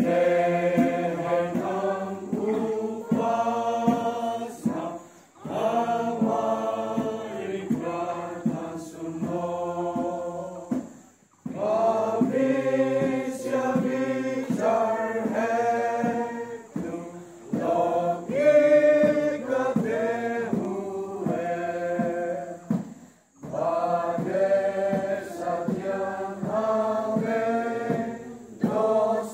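A group of school students, boys and girls, singing a song in Hindi together in long held phrases, with short pauses for breath about 11 and 23 seconds in.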